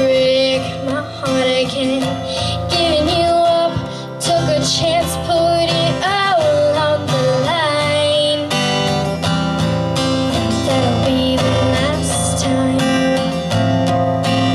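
A woman singing over strummed acoustic guitar.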